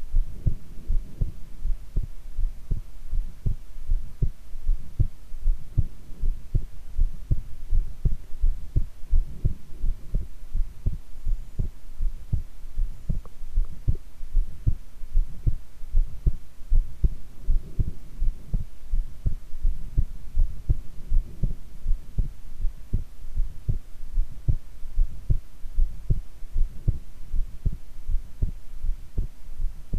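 A woman's heartbeat recorded close to the body: a steady, regular run of low thuds over a faint steady hum.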